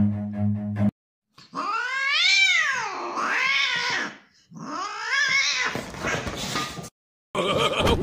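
Bowed-string music stops about a second in. Then a dog gives two long howling yowls, each rising and then falling in pitch, the second breaking off suddenly.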